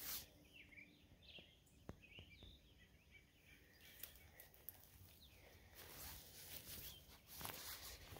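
Near silence, with faint, short bird chirps in the first few seconds and soft scuffing steps near the end.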